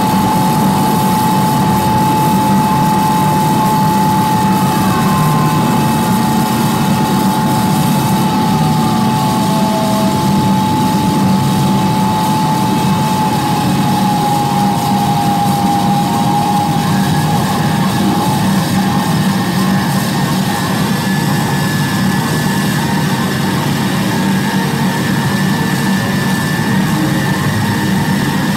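Live harsh noise music from electronics and effects pedals: a loud, dense, steady wall of noise. A held whistling tone runs through the first half, with a few falling tone glides, and a higher tone comes in about halfway through.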